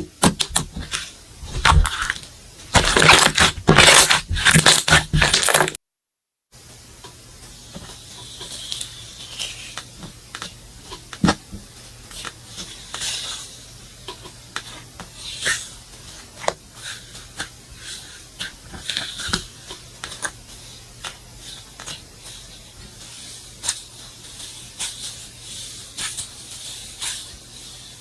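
Slime being squeezed and poked by hand, giving crackling, popping clicks and squelches. It is loud and dense at first, drops out for a moment about six seconds in, then goes on as quieter, scattered clicks.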